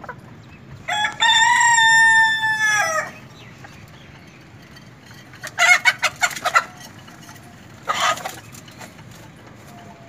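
Rooster crowing once, a single long call of about two seconds. A few seconds later chickens cluck in a quick run of short calls, then give one more short call.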